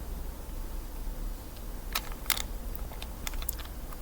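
A few sharp plastic clicks from a Rubik's Slide puzzle being handled and slid: two close together about two seconds in, then several lighter ones.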